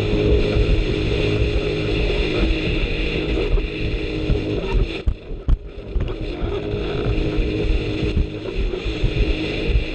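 Jet ski engine running at speed with a steady drone, over rushing water and rumbling wind. The sound dips briefly about five seconds in, then picks up again.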